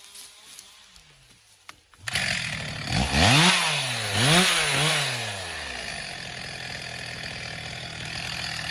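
Chainsaw engine coming in suddenly about two seconds in, revving up and down twice, then running steadily.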